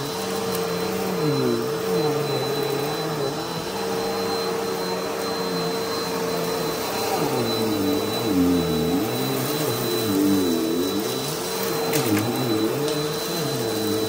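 Bissell PowerForce Helix Turbo Rewind upright vacuum running over a dirty shag rug. Its motor drone dips and rises in pitch over and over, with a thin high whine and a crunchy crackle of debris being sucked up.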